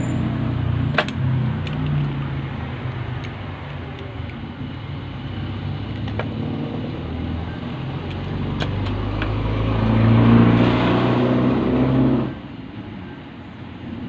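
A motor running with a low, steady hum. It swells near the end and then cuts off suddenly, with a few light clicks along the way.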